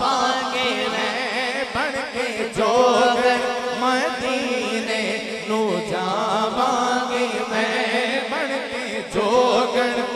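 A man singing a naat through a microphone, drawing out long melismatic notes that glide up and down, over a steady sustained drone.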